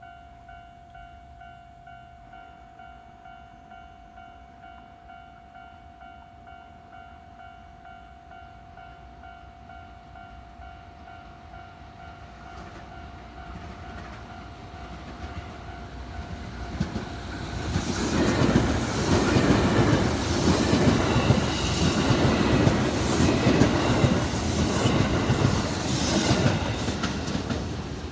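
A level crossing alarm rings steadily with a repeating electronic bell. Then a JR West 221 series electric train comes up and passes close by, loud for the last third, its wheels clacking rhythmically over the rail joints.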